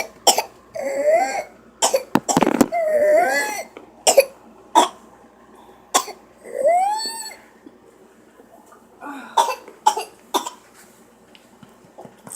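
A young child's whooping-cough fits: runs of short, sharp coughs, with three long pitched whoops that rise and fall in pitch between them, then a second run of coughs about nine seconds in.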